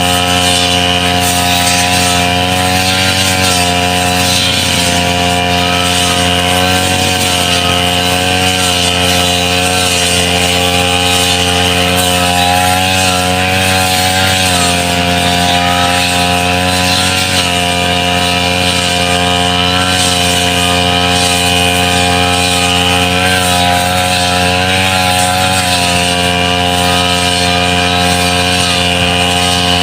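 Brush cutter's small petrol engine running steadily at speed, its pitch wavering slightly now and then.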